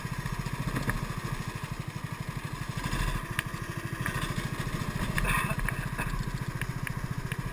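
Kart engine running under way, heard close from a camera mounted on the kart: a steady pulsing throb, with a few sharp clicks and rattles about three to five seconds in.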